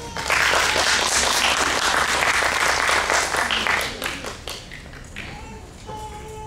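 Audience applause breaks out at once, stays loud and dense for about three and a half seconds, then dies away into scattered claps.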